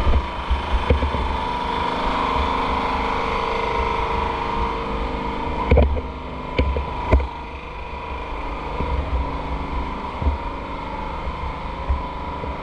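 A vehicle engine running steadily, with a few sharp knocks about six and seven seconds in.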